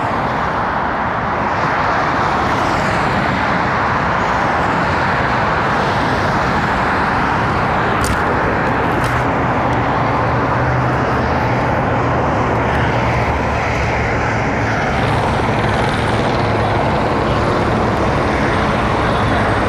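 Steady roar of heavy freeway traffic, an even wash of tyre and engine noise with no single vehicle standing out.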